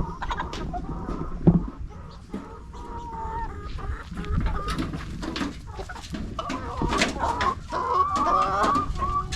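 Chickens clucking steadily, the calls thickening in the second half, with many short clicks and one loud knock about a second and a half in.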